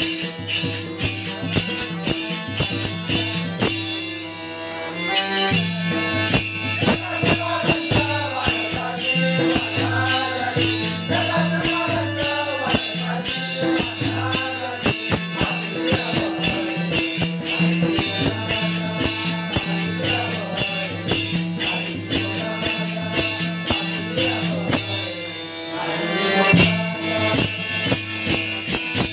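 Warkari bhajan: a man's voice singing a devotional melody over a steady held drone, with metal hand cymbals jingling in a fast, even rhythm. The cymbals stop briefly twice, a few seconds in and near the end.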